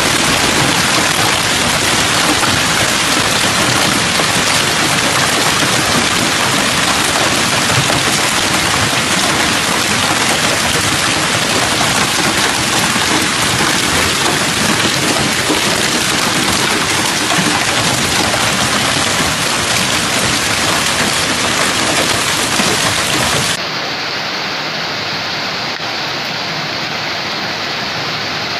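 Heavy hail and rain pelting car roofs and pavement in a dense, steady rush of impacts. About 23 seconds in, it cuts to a quieter, duller wash of the storm heard from higher up.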